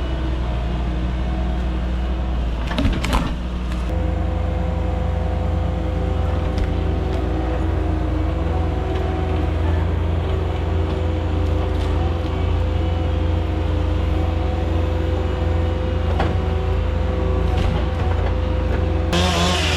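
Mini excavator's diesel engine running steadily with a whine over the low rumble. The rumble picks up about four seconds in, just after a brief clatter.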